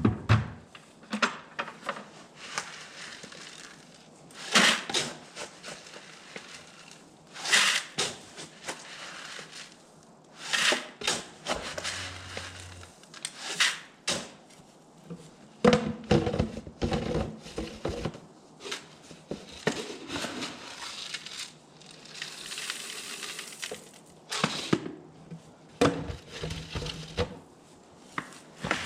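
Irregular knocks and clatter, with stretches of rustling between them.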